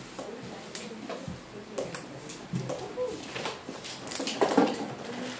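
Classroom activity: scattered small knocks and clatter, with faint children's voices, louder for a moment near the end.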